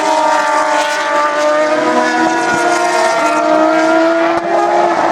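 High-revving engines of open-wheel race cars running flat out, several at once. Their steady, high-pitched notes overlap and drift slowly up and down in pitch.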